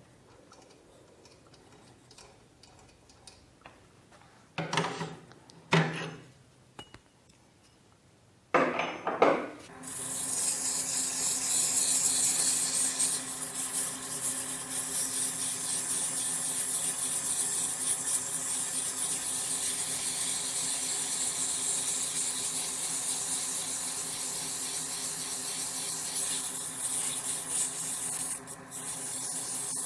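A few short knocks, then from about ten seconds in, sandpaper hissing against a wooden pen blank spinning on a Jet 1221VS midi lathe, over the steady hum of the lathe's motor.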